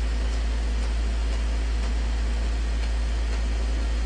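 Steady low electrical hum with an even hiss of static from a weather radio receiver, its broadcast silent between messages.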